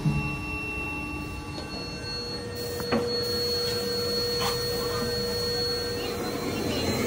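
Steady workshop machinery hum and hiss with thin, even whining tones; a new steady whine sets in about three seconds in with a light knock.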